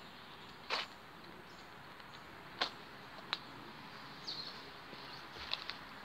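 Outdoor ambience: a steady soft hiss broken by a few sharp clicks, the loudest about a second in and again near the middle, with a short falling bird chirp about two-thirds of the way through.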